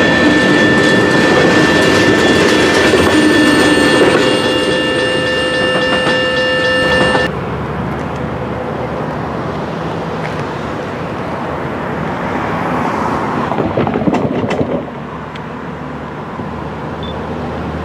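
Freight cars rolling past a grade crossing with the crossing bell ringing steadily over the rumble and clatter of wheels. About seven seconds in it cuts off abruptly, leaving a steady rushing noise that swells and then drops suddenly near the end.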